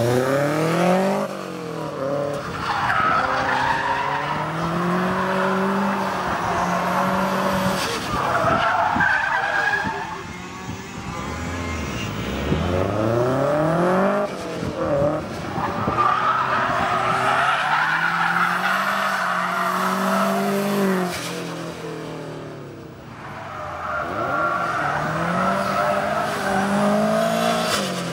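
A rally car being drifted on tarmac: the engine revs up and down again and again as it slides, with tyres squealing and skidding. It eases off briefly near the end before revving up again.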